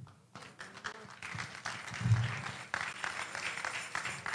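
Audience applause, clapping that starts about a second in and keeps going.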